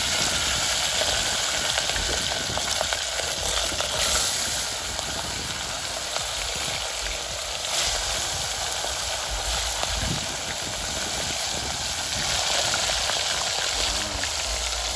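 Whole tilapia deep-frying in a pot of hot oil: a steady sizzle with crackling.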